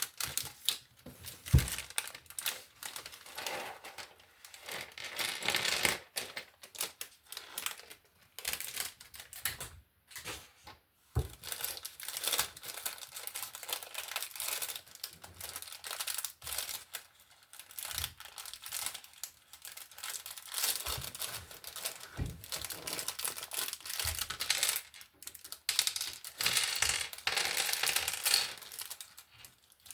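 Plastic Lego pieces clicking and clattering as they are handled and pressed together, with irregular rustling and crinkling throughout.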